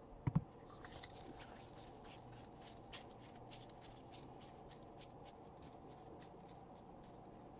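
Faint flicks and slides of a stack of 2018 Panini Donruss baseball trading cards being thumbed through one by one, with a couple of sharper knocks near the start.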